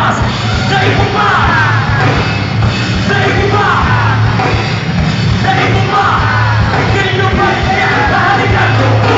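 Live heavy rock band playing loud, with electric guitars, drums and vocals into a microphone.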